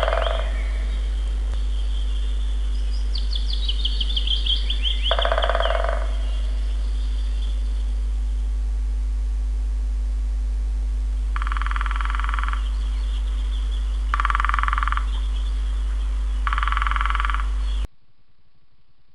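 Garden birds calling over a loud, steady low hum: a fast trill of quick repeated notes a few seconds in, and short buzzy calls about a second long, three of them near the end.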